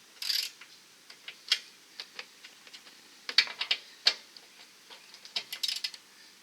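Socket ratchet wrench clicking in short, irregular spurts while backing out the bumper mounting bolts.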